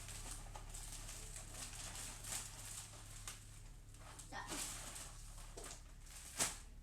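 Faint rustling and soft handling noises of clothing and packaging being moved about, over a low steady hum, with a sharper rustle or click near the end.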